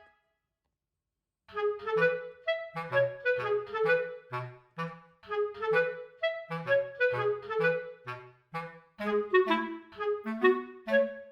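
Background music: a light, bouncy tune in short, detached notes over a low bass line, starting about a second and a half in after a moment of silence.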